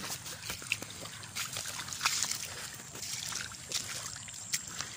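Shallow water sloshing and trickling as someone wades through a flooded field, with scattered small splashes and clicks.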